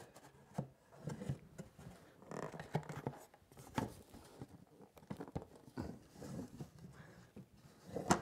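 Faint scraping and several light wood-on-wood knocks as a thin mahogany panel is slid into the grooves of a glued dovetailed box and the box is handled on the workbench.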